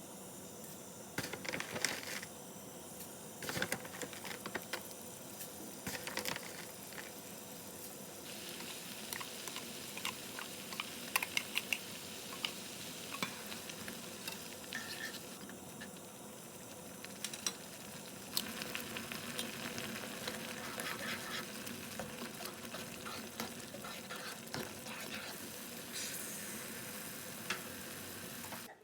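Food sizzling in a frying pan, with a utensil stirring and tapping against the pan now and then.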